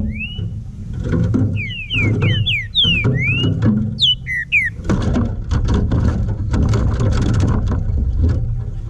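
Green-winged saltator (trinca-ferro) singing a quick run of slurred whistles, each sliding up or down, that stops a little past halfway, over a dense low background sound.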